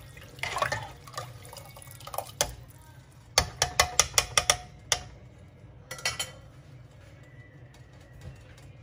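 Steel ladle stirring watery rice-and-lentil khichdi in an aluminium pressure cooker, the liquid swishing, then a quick run of about eight sharp metal clinks of the ladle against the pot, with two more clinks a second later.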